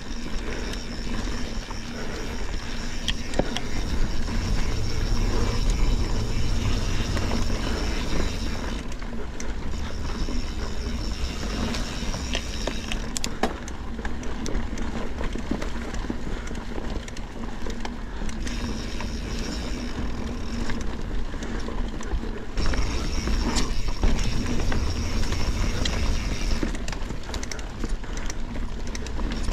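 Mountain bike being ridden over dirt singletrack: tyres rolling and the bike rattling, with scattered sharp clicks and knocks. The rear hub buzzes in stretches while the rider coasts.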